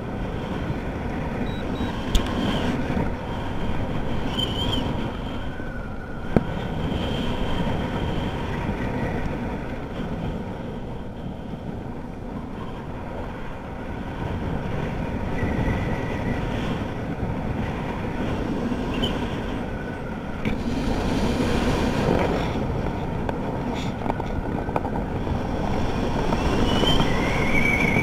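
Wind rushing over the microphone of a parachutist's head-mounted camera during canopy flight: a steady rumbling hiss that grows somewhat louder in the last few seconds as the canopy turns.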